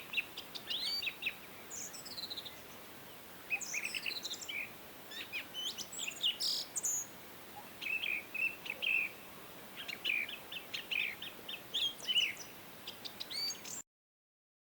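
Several songbirds chirping and twittering in quick overlapping phrases, with short falling whistles, over a faint steady hiss. The sound cuts off abruptly near the end.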